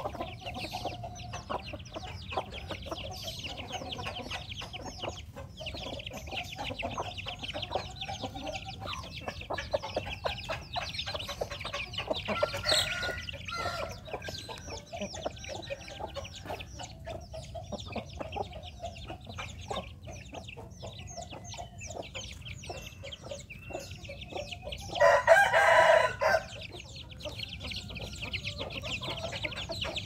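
Free-range chickens feeding: chicks peeping and hens clucking throughout. A rooster crows loudly once about 25 seconds in.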